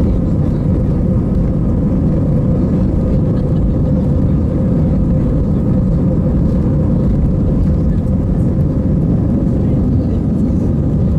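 Steady cabin noise of an Airbus A320-214 in flight: its CFM56 jet engines and the airflow give a dense low rumble, with a steady hum running through it.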